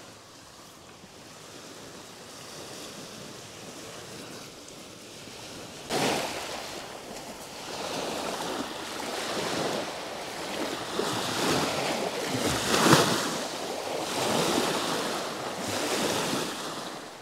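Small waves washing up on a sandy shore. A soft steady hiss gives way about six seconds in to louder surges, each wave swelling and fading over a second or two, about six in all.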